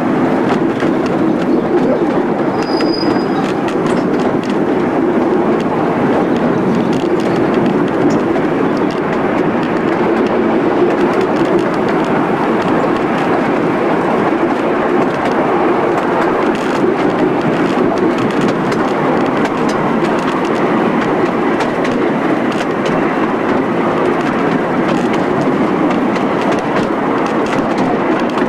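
Steady rumble and rattle of a miniature passenger car's wheels rolling along the track, heard from on board. A brief high squeak about three seconds in.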